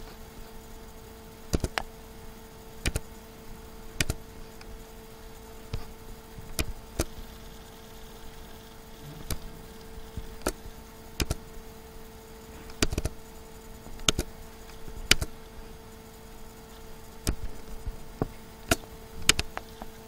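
Computer mouse buttons clicking: sharp single clicks at irregular intervals, some in quick pairs, over a steady low electrical hum.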